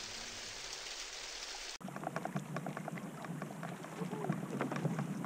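A steady hiss for nearly two seconds, then it cuts off abruptly and gives way to small water splashes and trickles against a kayak's hull: a dense crackle of little ticks over a low steady rumble.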